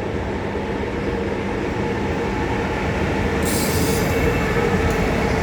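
Freight train of Eas open wagons hauled by an HŽ series 1141 electric locomotive rolling past: a steady rumble with a faint hum, slowly growing louder. A short high hiss cuts in about three and a half seconds in.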